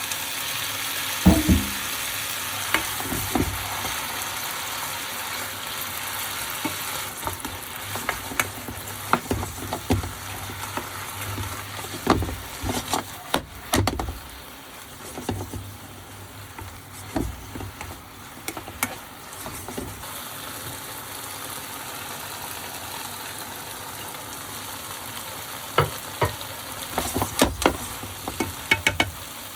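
Eggplant stir-fry sizzling in a frying pan, with irregular scrapes and taps of a spatula or chopsticks against the pan as it is stirred. The sizzle is strongest at first and eases off a little.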